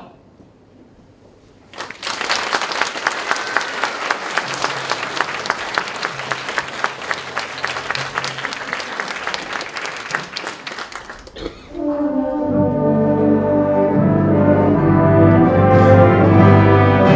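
An audience applauds for about nine seconds, starting a couple of seconds in after a brief hush. Near the end, a wind band of brass and reeds starts playing and grows louder, with a strong tuba and low-brass bass, and becomes the loudest sound.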